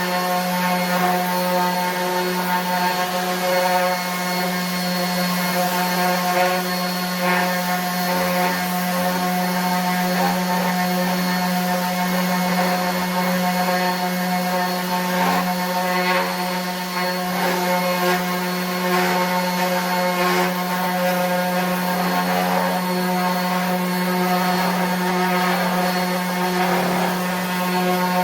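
RIDGID 18-volt 5-inch cordless random orbit sander running steadily while sanding a scrap of wood across the grain: a constant motor hum with the gritty scuffing hiss of the sanding pad on the wood.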